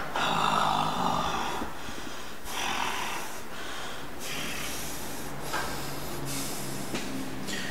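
A man breathing hard and deeply after heavy weight training, hoarse rasping breaths about once a second as he recovers between sets. The first breath is the loudest.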